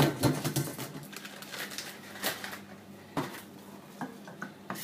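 Kitchen clatter of a pot and dishes being handled at a sink: a burst of knocks and clinks at the start, then single sharp knocks about once a second.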